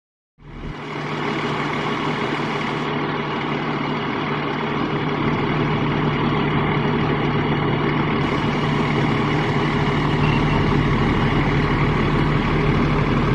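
Fire truck's diesel engine running steadily with a strong, even low hum. The sound cuts in abruptly just under half a second in.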